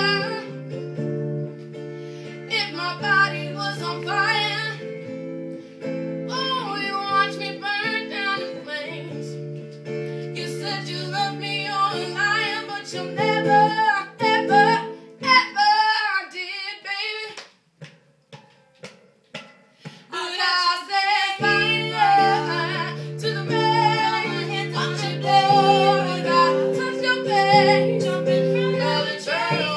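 Two female voices singing a pop ballad mash-up over guitar chords. About two-thirds of the way through, the guitar stops for a few seconds, leaving only a few short sounds, then the song resumes.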